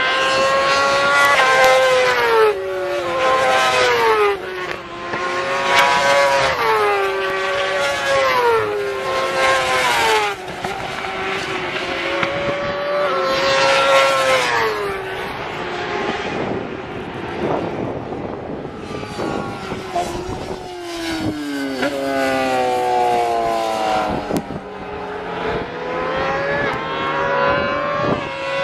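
Superbike racing motorcycles at full throttle passing along the track, their engines climbing in pitch and dropping sharply again and again as they shift up. Several bikes go by, some passes louder than others.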